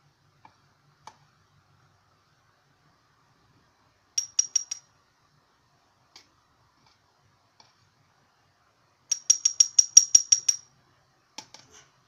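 Two runs of rapid, evenly spaced sharp clicks: a short run of about five a little after four seconds, and a longer, louder run of about a dozen near the end, roughly seven clicks a second. A few faint single ticks fall between them.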